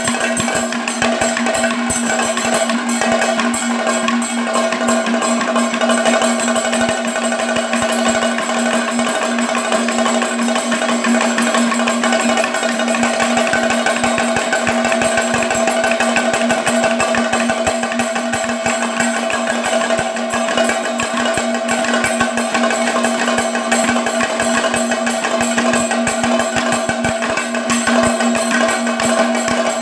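Kathakali melappadam drumming: two chendas beaten with sticks and two maddalams played by hand, a fast, dense and unbroken rhythm. A steady ringing tone sounds beneath the strokes.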